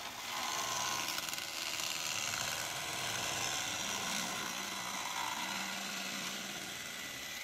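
Cordless drill running steadily, boring a hole into a PVC vent pipe, then stopping suddenly near the end.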